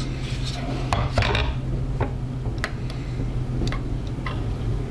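Cuisinart Complete Chef cooking food processor running with a steady low hum as it heats and stirs a cheese dip, with a handful of light, scattered clinks.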